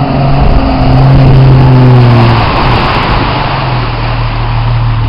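Off-road 4x4 SUV engine running steadily under load as it wades through deep floodwater. A little past halfway the engine note weakens under a broad hiss.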